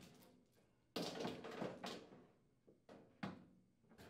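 The metal outer cabinet of a Whirlpool over-the-range microwave being lifted off its frame: a short clatter of light knocks about a second in, then a sharp knock and another small one near the end.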